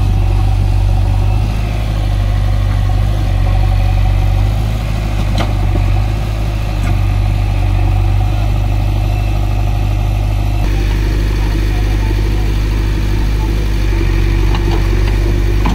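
Heavy diesel engine idling steadily, with a short tick about five seconds in and a change in tone a little past halfway.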